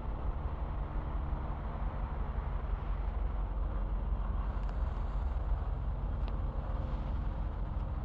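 A vehicle's steady low rumble, with engine tones running underneath and a few faint clicks in the second half.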